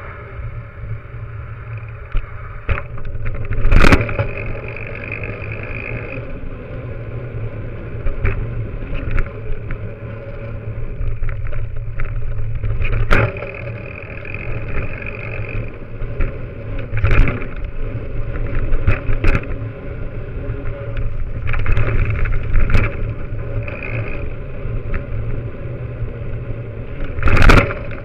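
Bicycle riding heard from a camera clamped to the front fork: a steady low rumble of the tyre rolling over pavement, with sharp knocks every few seconds as the wheel hits bumps and edges, the loudest about four seconds in and near the end.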